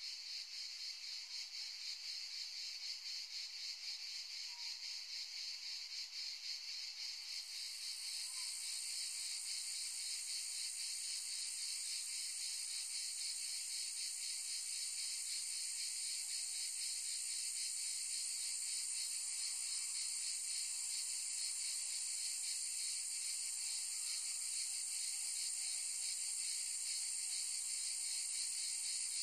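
A dense chorus of insects: a steady, shrill, high-pitched buzz with fast pulsing. A second, higher-pitched insect joins about seven seconds in, and the chorus grows a little louder.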